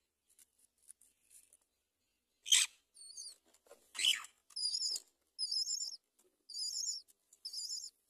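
Great myna nestlings begging: four bursts of high, trilling chirps in the second half. Before them come two short harsh noises, about two and a half and four seconds in, the first the loudest sound here.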